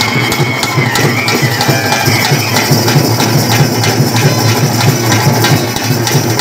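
Ritual band music: a high-pitched wind instrument holding long, slightly wavering notes over rapid, steady drumming.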